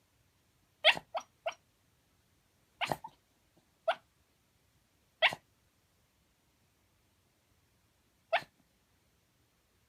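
Shiba Inu making short woofs and yips in its sleep, about seven in all: a quick run of three near the start, then single ones spaced a second or more apart.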